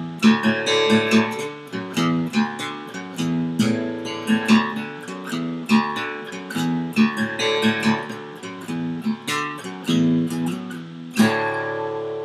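Acoustic guitar strumming chords in a steady rhythm, ending on one last strummed chord about eleven seconds in that is left to ring.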